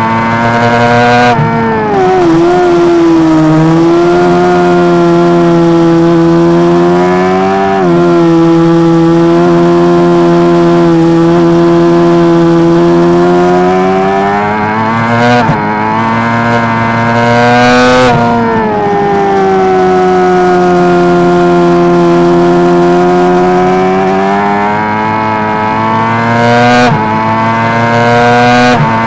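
Honda CBR600RR race bike's inline-four engine at high revs, heard from the bike itself: the pitch climbs and sags through the corners, with several sharp breaks at gear changes.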